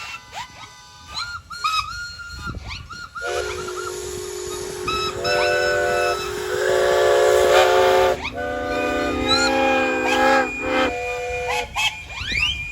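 Many steam whistles on traction engines and steam rollers blowing at once at several different pitches, overlapping blasts that slide up in pitch as they open, over the hiss of escaping steam.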